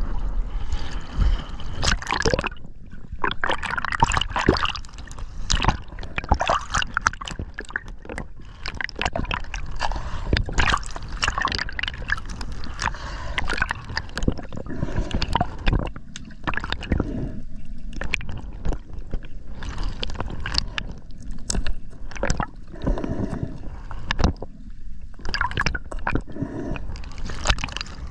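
Sea water sloshing and gurgling as a freediver dives and resurfaces, heard partly from underwater, with frequent sharp clicks and knocks.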